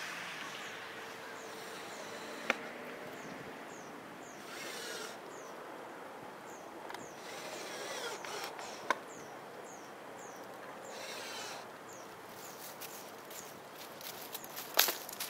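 Cordless drill-driver running in three short bursts a few seconds apart, with two sharp knocks between them and a quick run of clicks near the end.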